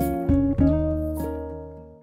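Background music: a few chord changes, then the last chord rings on and fades out near the end.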